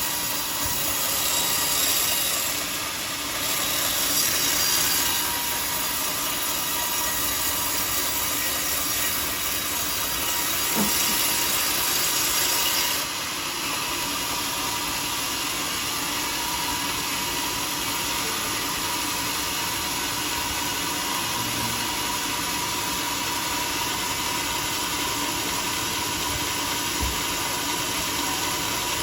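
Sawmill saw running through a teak log, its steady machine hum under the hiss of the blade cutting wood. The cutting hiss stops about halfway through, leaving the saw running steadily.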